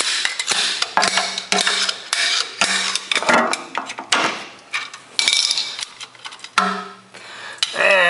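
Hand tools clanking and tapping on the metal underside of a tractor: a run of irregular sharp knocks and clicks, some leaving a brief ringing tone.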